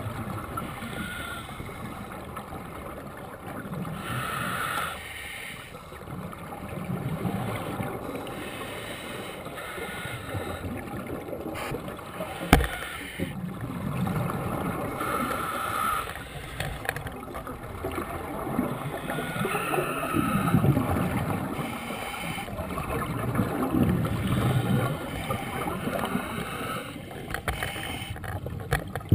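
Scuba regulator breathing underwater: hissing inhalations alternate with gurgling bubble exhalations every few seconds. One sharp click comes about twelve seconds in.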